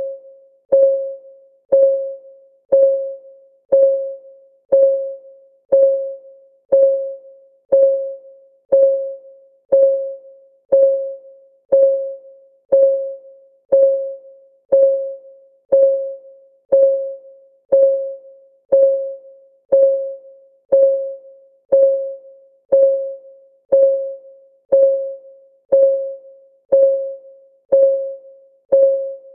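Clock-ticking sound effect, a steady tick once a second, each tick a short click with a brief ringing tone.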